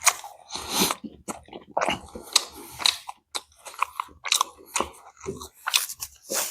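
Close-miked person chewing and crunching food, a quick irregular run of crunches and wet mouth clicks.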